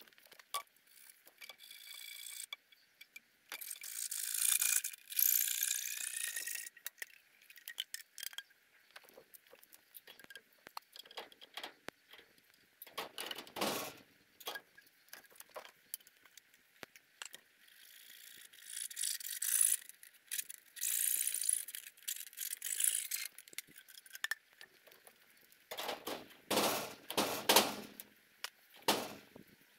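Scraping and squeaking of a PVC pipe elbow being worked onto a metal roof gutter outlet, in two long stretches, with scattered clicks and a few heavier knocks near the middle and near the end.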